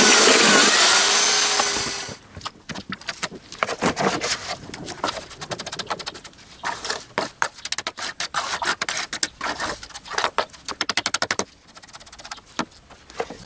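Electric drill with a paddle mixer churning concrete screed in a plastic tub, its motor pitch wavering, stopping suddenly about two seconds in. Then a trowel scrapes and taps on wet screed and concrete in irregular strokes, with quick runs of scrapes later on.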